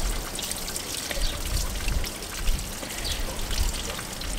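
Flushing water draining in a steady stream from an opened radiator drain tap, running clean now that the rust has been flushed out of the cooling system.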